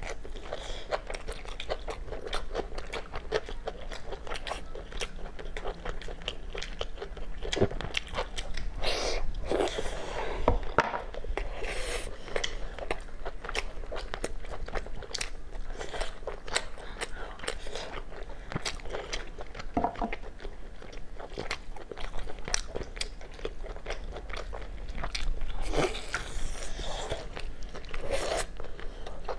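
Close-miked eating: biting, tearing and chewing braised meat off rib bones, with many short, irregular clicks of mouth and teeth.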